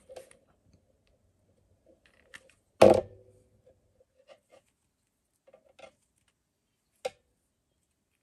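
Quiet handling sounds of yarn-wrapped wire flower stems being held and joined by hand, with one sharp knock and a short ring about three seconds in and a smaller click near the end.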